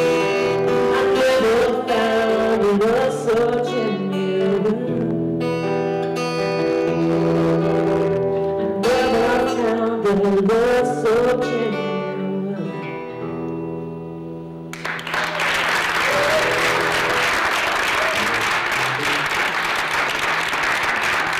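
Acoustic guitar and a woman's singing end a song about two-thirds of the way through, and an audience applauds for the rest.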